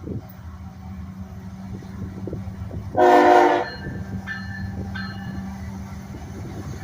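GE Evolution-series diesel freight locomotives running steadily as the train departs. About three seconds in, a locomotive horn gives one short blast.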